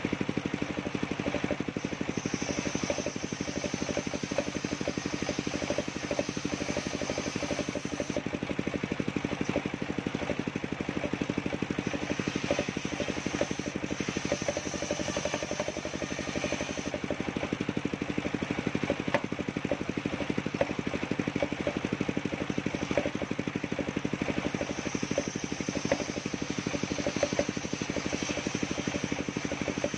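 The engine of a circular-saw sawmill running steadily at a fast even beat, with a high thin whine that comes and goes several times.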